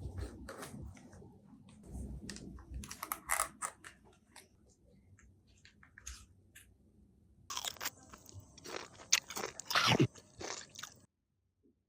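Crunchy biting and chewing: irregular crackling crunches in clusters, strongest in the second half, cutting off suddenly near the end.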